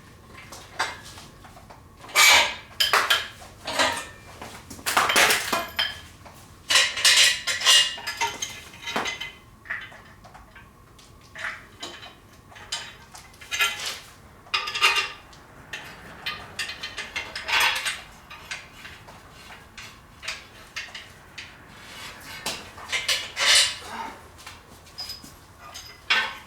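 Loose steel sockets and hand tools clinking and clattering in irregular clusters as they are handled and sorted through, with quieter pauses between.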